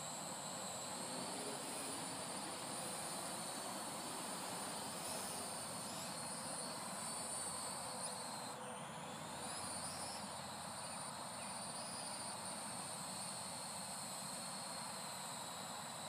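Parrot AR.Drone 2.0 quadcopter flying: a high motor-and-propeller whine whose pitch keeps rising and falling as it manoeuvres, over a steady hiss.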